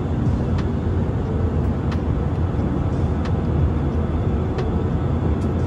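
Steady roar of a turbofan jet airliner in flight, heard inside the cabin at a window seat beside the engine: engine and airflow noise, strongest in the low end, with a few faint ticks.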